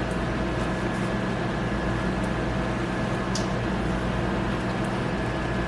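Steady machine hum with several held tones at an even level, and a few faint high clicks.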